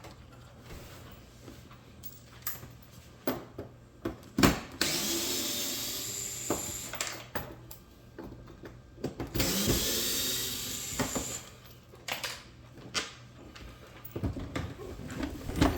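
Cordless drill-driver running in two runs of about two seconds each, backing out the screws of a dishwasher door panel, with clicks and knocks of handling in between.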